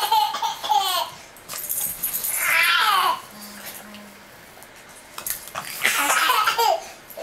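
Baby laughing in three squealing bursts, each falling in pitch: one at the start, one about two to three seconds in, one about six seconds in.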